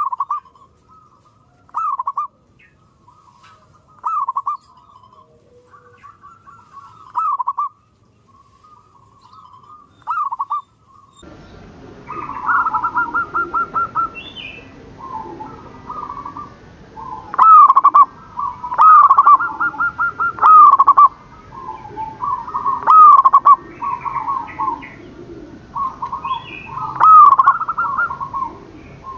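Zebra doves cooing. For about the first eleven seconds, single rolling calls come every two to three seconds. Then the background suddenly gets noisier, and louder, overlapping calls come in quick succession.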